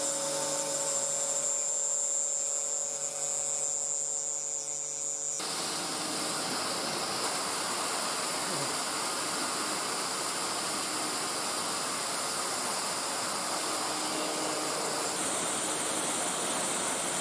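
DIY CNC router spindle running steadily with the cutter machining an aluminium plate, on a finishing pass that cuts through the thin floor of a pocket. About five seconds in, the steady whine changes suddenly to a fuller, rougher cutting noise.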